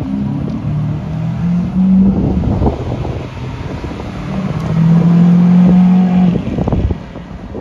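Lamborghini Aventador Roadster's 6.5-litre V12 revving as the car drives slowly past: the engine pitch climbs in steps over the first couple of seconds, then the engine is held at a loud steady note for about two seconds before dropping off. A sharp crack comes in between and again just after the note drops.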